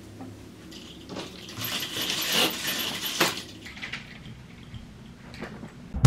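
Window curtain being drawn shut, sliding along its rail with a hissing, clicking rattle for about two and a half seconds from about a second in; a few faint clicks follow.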